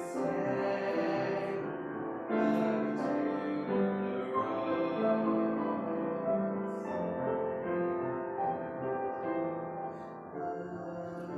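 Slow instrumental keyboard music: held notes and chords.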